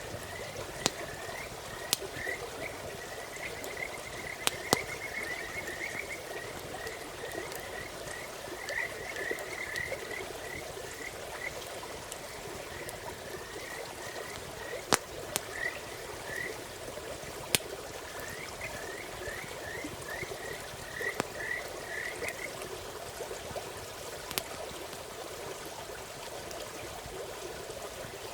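Frogs calling in runs of short, quick chirps, which stop a few seconds before the end. Under them runs a steady rushing like a stream, and now and then a sharp crackle from a campfire pops out above everything.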